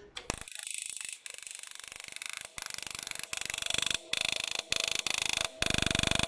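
Patmark portable dot peen marker's stylus rapidly hammering polished stainless steel, a fast even stream of impacts with brief pauses between characters, over a steady machine whine. The strikes start just after the beginning and get louder near the end.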